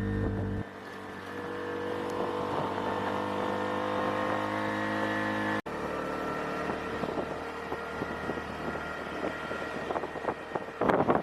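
Small auto-rickshaw (tuk-tuk) engine running while under way, a steady droning hum that rises slightly in pitch. It breaks off abruptly about halfway and resumes, rougher, with rushes of wind on the microphone near the end.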